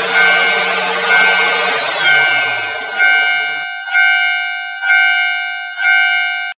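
Japanese railroad crossing warning bell ringing about once a second, each strike fading before the next. A train rushes past during the first half, its noise and pitch falling away as it goes by and cutting off about halfway through. The bell stops abruptly at the end.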